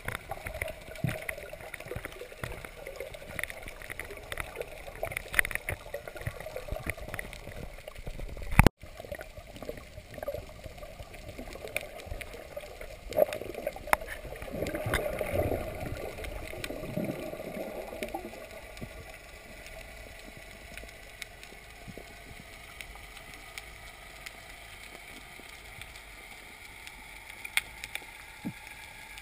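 Water sloshing and gurgling with scattered small knocks. A sharp click and a brief dropout come about nine seconds in, and a surge of water sound swells and fades in the middle before the sloshing settles to a steadier, quieter wash.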